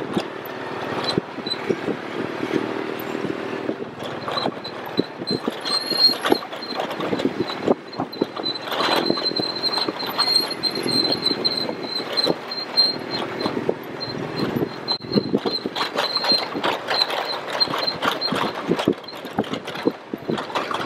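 ATV ride over a rough dirt road: the quad's engine runs under a constant irregular clatter of knocks and rattles as the vehicle jolts over the bumps. A thin, high, steady whine runs through the middle stretch.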